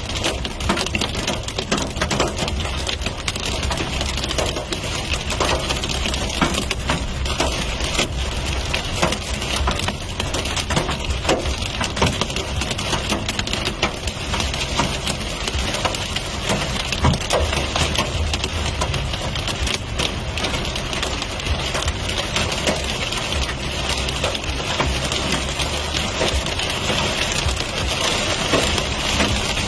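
Rain falling, a steady dense patter of small hits on a surface, with a low rumble underneath.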